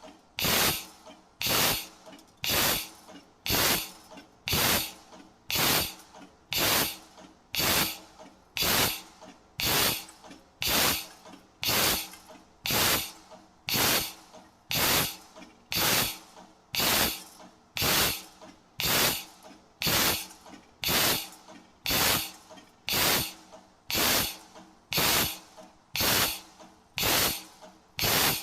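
CNC tube punching machine cycling steadily, one punch stroke about every second, each stroke a short, loud burst of noise that cuts off sharply, with a faint steady hum from the machine underneath.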